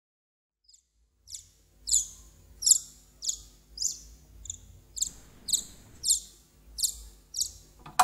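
Newly hatched cockatiel chick cheeping: a string of about a dozen short, high peeps, roughly two a second.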